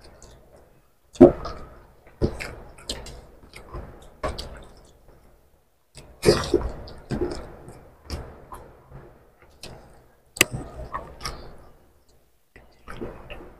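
Eating noises from two people eating rice and egg curry by hand: irregular short wet clicks and smacks of chewing and mouth sounds, with a sharper smack about a second in and another at about ten seconds.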